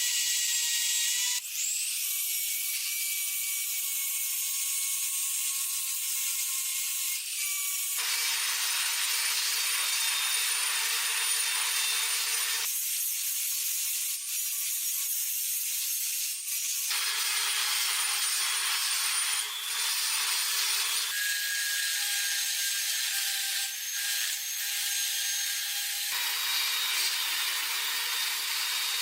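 A small power tool abrading metal, with a steady high whine over a gritty hiss. The whine jumps to a new pitch at abrupt changes every few seconds, as short clips follow one another.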